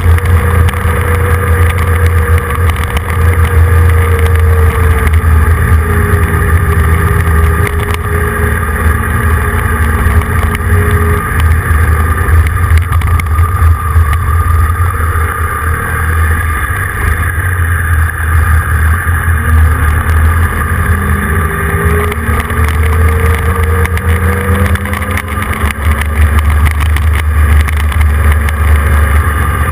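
A vehicle engine running on the move under constant wind noise on the microphone. Its pitch drops between about 5 and 11 seconds in and climbs again past the middle, as the vehicle eases off and picks up speed.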